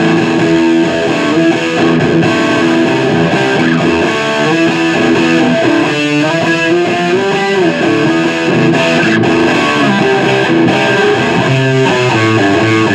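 ESP LTD Black Metal electric guitar played through a distorted amp: held notes mixed with quicker single-note runs and riffs.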